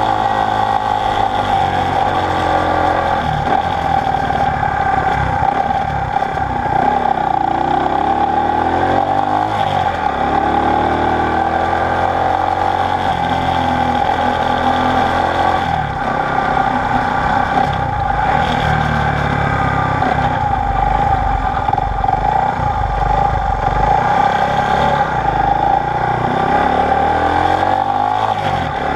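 Honda SL90's small single-cylinder four-stroke engine running while the motorcycle is ridden along, its pitch rising and falling several times with the revs.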